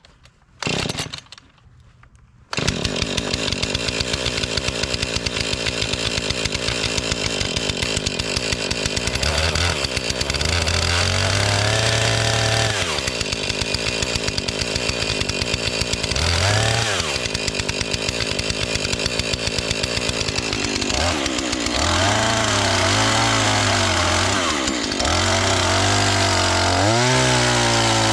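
Two-stroke chainsaw pull-started: a short burst from the starter pull, then the engine catches about two and a half seconds in and runs steadily. From about nine seconds in it is revved up and down repeatedly, the pitch rising and falling.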